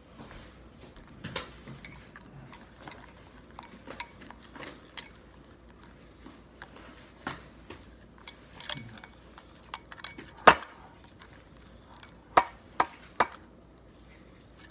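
Irregular clinks and knocks of a utensil against a bowl while a chunky, over-activated slime mixture is stirred, the loudest knock about ten and a half seconds in and three quick ones near the end.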